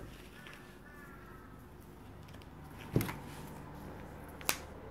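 Faint crows cawing in the background, then two sharp clicks, about a second and a half apart, as string and cardboard are handled on the table.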